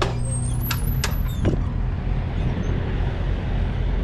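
A door's push bar clacks and the door opens, with a few knocks in the first second and a half; then a steady outdoor rumble of vehicle noise.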